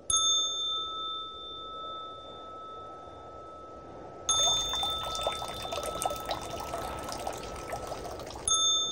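A high bell-like chime rings out three times, at the start, about four seconds in and near the end, each tone held and slowly fading. Between the second and third chimes, water splashes and trickles, as from the dragon spout of a shrine purification basin.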